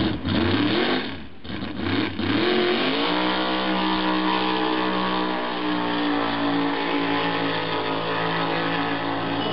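Opel GT drag car's engine revving in short blips on the start line, then launching about three seconds in: the note climbs quickly and holds at a steady high pitch as the car runs off down the strip.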